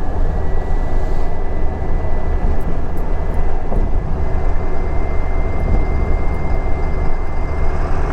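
Ford 7.3L Power Stroke turbo-diesel V8 running steadily just after a hard cold start, with a thin, steady high whistle from the turbocharger over the diesel drone.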